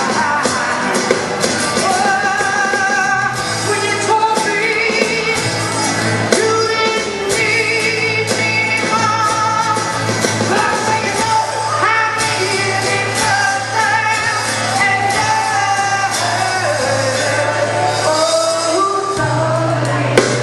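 Rock music with a singer over a steady drum beat and bass line, heard in a large room.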